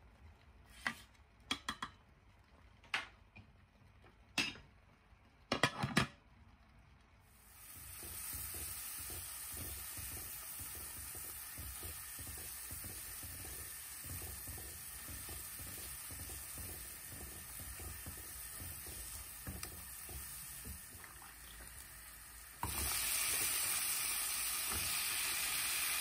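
A few sharp clicks of a serving spoon against a rice-cooker pot while cooked rice is fluffed. Then a spatula stirs masala paste frying in a pan, scraping steadily over a sizzle. Near the end the sizzle jumps suddenly to a louder hiss with chopped green vegetables cooking in the paste.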